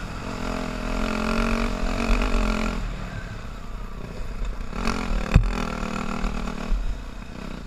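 Yamaha dirt bike engine running on the throttle, easing off about three seconds in and pulling again in the second half, with one sharp knock about five seconds in. A steady low wind rumble on the helmet microphone lies under it.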